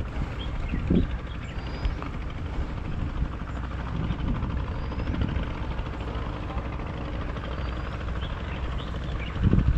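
Wind buffeting the microphone: a steady, fluttering low rumble that swells briefly about a second in and again near the end, with a few faint short high chirps.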